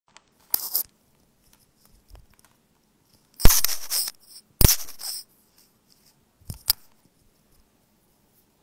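Handling noise close to a phone's microphone as wired earphones are untangled and fitted: a brief rustle, two louder scratchy scrapes a little over a second apart in the middle, then two quick clicks.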